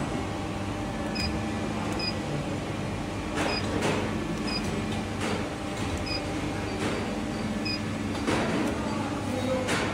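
Injection moulding machine running with a steady hum, short beeps from its control-panel keypad as keys are pressed, and now and then a short knock or hiss from the machine.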